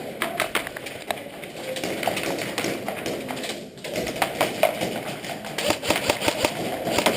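Airsoft guns firing in an exchange: runs of sharp, rapid clicks that are densest in the second half.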